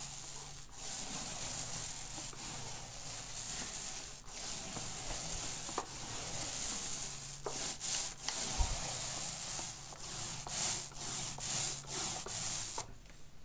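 Paint roller with a 9-inch microfibre medium-pile sleeve, fully loaded with paint, rolling up and down a wall. It makes a continuous rolling swish, broken by short gaps where the stroke reverses. The strokes come quicker in the last few seconds, and the rolling stops shortly before the end.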